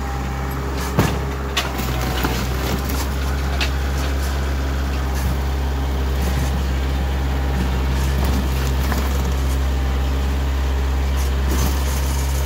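Kioti compact tractor's diesel engine running steadily as its front-loader bucket crushes a rotted wooden shed. Wood cracks and snaps several times, loudest about a second in.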